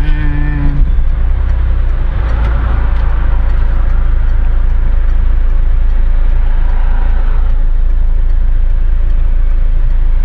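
A motorcycle being ridden along: engine and road noise under a heavy, steady low rumble of wind on the microphone.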